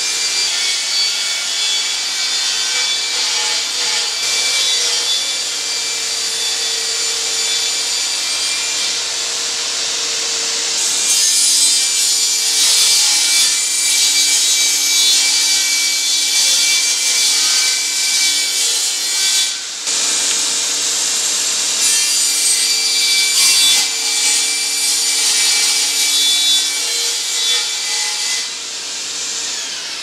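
Jobsite table saw running steadily and cutting plywood into thin strips for tambour door slats. It gets louder from about 11 seconds in, with a brief break near 20 seconds.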